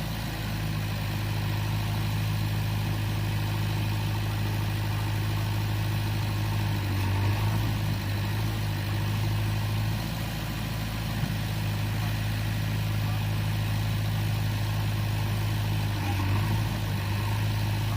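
JCB 3DX backhoe loader's diesel engine running steadily at low speed, its note briefly shifting about seven seconds in and again near the end.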